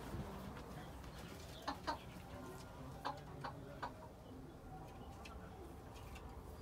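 Bantam chickens giving a handful of short, quiet clucks.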